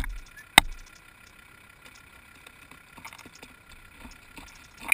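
Prairie rattlesnake rattling with a faint, steady high buzz. Sharp knocks on or near the camera come at the start, again about half a second later, and once near the end.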